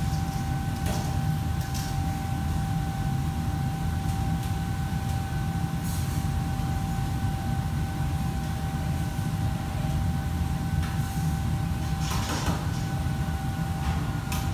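Steady low mechanical hum of kitchen machinery with a thin, even whine over it, broken a few times by short clatters of pans or utensils.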